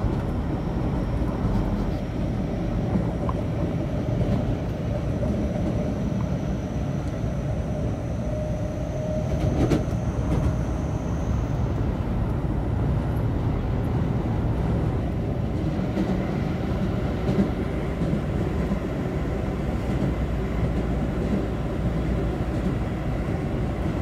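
Toei Shinjuku Line train running, heard from inside the passenger car: a steady low rumble of wheels and running gear. A faint high whine rises slowly and stops about halfway through, and there is a single knock near the middle.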